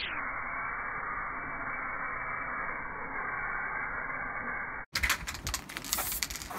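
Aerosol spray paint can hissing steadily, dull and muffled, for about five seconds. After a momentary break comes a quick run of sharp clicks and rattles.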